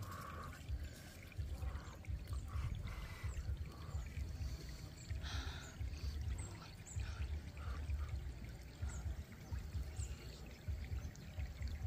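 Small shallow stream running over stones, with a low rumble underneath and a few short bite and chewing sounds.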